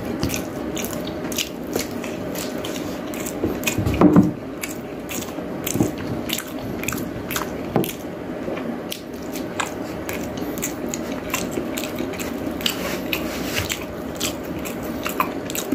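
A man chewing food close to the microphone, mukbang-style, with a rapid run of small wet clicks and smacks from his mouth. There is one louder burst about four seconds in.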